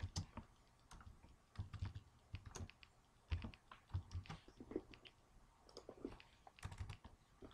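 Typing on a computer keyboard: a faint run of irregularly spaced keystrokes.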